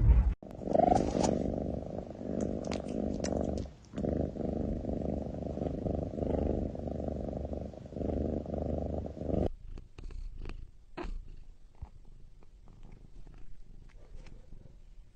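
A cat purring loudly and steadily, with a short break about four seconds in. The purring cuts off about nine and a half seconds in, leaving only faint soft clicks and rustles.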